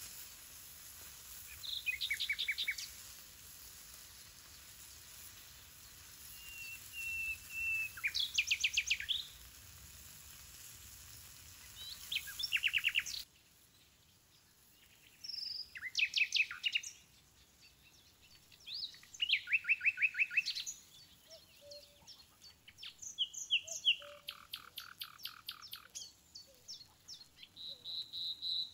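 Songbirds singing: phrase after phrase of quick, evenly repeated high notes, some falling in pitch. A faint steady hiss underneath stops abruptly about halfway through.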